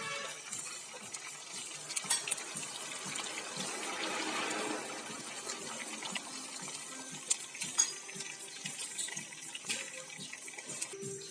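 Water running from a tap into a kitchen sink, swelling for a couple of seconds near the middle, with a few sharp clinks like dishes or utensils being handled.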